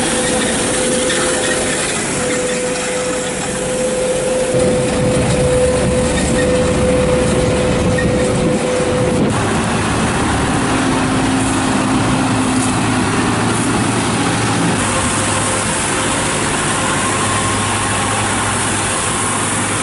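Iveco road sweeper truck running with its brush working the cobbled street, a steady whine over the engine. About nine seconds in the sound cuts to other street-cleaning vehicle engines running, a tractor and tanker trucks among them.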